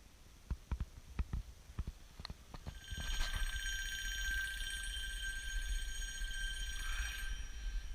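A few light, irregular clicks and knocks, then an alarm clock ringing steadily from about three seconds in. The ringing stops shortly before the end.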